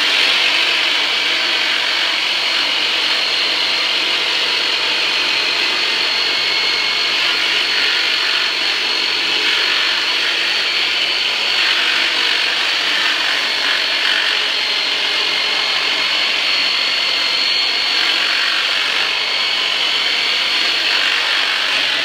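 The Turbonator, a red handheld electric power tool fitted with a round tip, running steadily while pressed against a patient's lower back: a loud, even motor buzz with a thin high whine over it.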